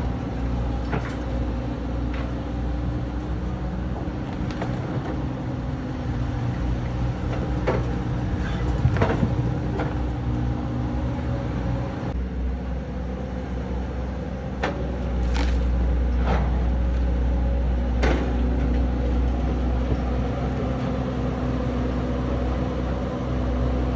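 Excavator's diesel engine running steadily, with scattered sharp knocks, the engine getting louder about fifteen seconds in.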